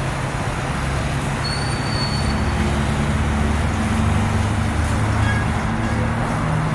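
Road traffic noise with a motor vehicle engine running steadily, its low hum growing stronger about two seconds in.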